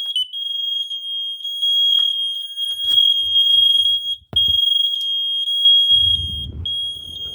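Several smoke alarms, Kidde i9010s among them, sounding together from a box, their high-pitched alarm tones overlapping into a near-continuous shrill sound with brief dips; they were set off by humidifier mist in the box. A low rumble comes in about six seconds in.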